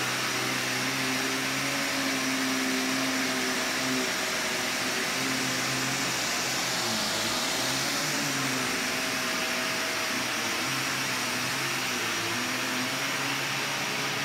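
Vax Commercial VCU-03C upright vacuum cleaner running steadily on carpet: a continuous motor hum with a hiss of rushing air, its pitch wavering a little as the machine is pushed about.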